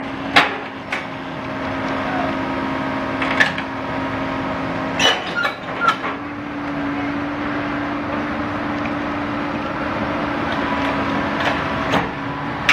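Komatsu PC130 excavator's diesel engine running steadily under load with a constant hum as the machine climbs a lowbed trailer ramp, with several sharp metallic clanks from its steel tracks and bucket against the steel ramp and deck.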